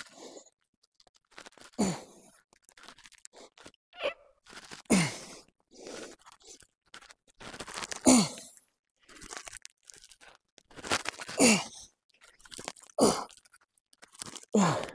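A man's forceful grunting exhales during heavy single-arm dumbbell rows, one with each rep. Each one falls in pitch, and they come every few seconds, quicker near the end.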